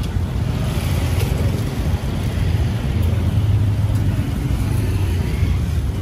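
Road traffic noise: a steady low rumble of passing vehicles.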